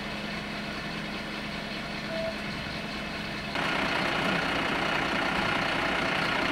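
Diesel engine of a parked fire engine idling with a steady low hum. About three and a half seconds in, the sound suddenly gets louder and hissier.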